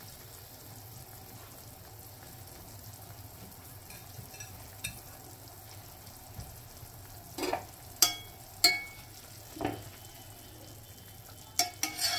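A pot of water simmering with a steady low hiss. From about seven and a half seconds in, a metal spoon clinks and scrapes against the metal pot several times as the soup is stirred, some strikes leaving a short ring.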